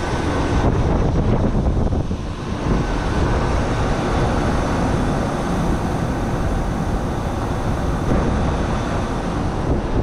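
Steady low rumble of a running air-conditioning condensing unit, mixed with wind buffeting the microphone.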